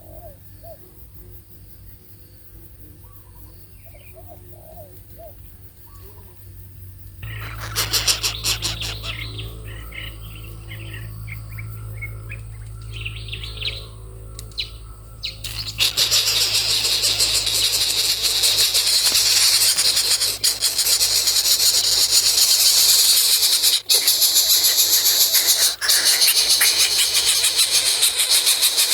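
Small bird chirps, faint at first, joined after about seven seconds by a low hum; about halfway through a loud, even, high-pitched hiss starts and covers the rest.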